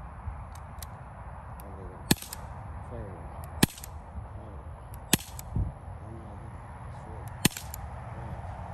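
Smith & Wesson air pistol firing four single shots, each a short sharp crack, about a second and a half to two seconds apart, during target practice at a paper silhouette target.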